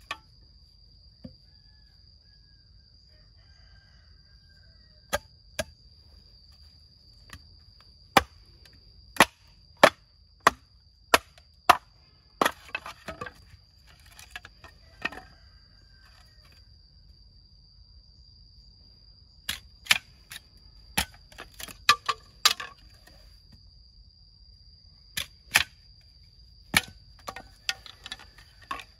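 Machete striking and splitting a green bamboo culm into strips: sharp, cracking knocks in irregular groups, some close together, with pauses between. A steady high-pitched whine runs underneath.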